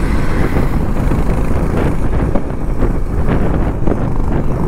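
Steady road noise from riding a motorcycle in traffic: engine and vehicle noise under wind rushing over the microphone.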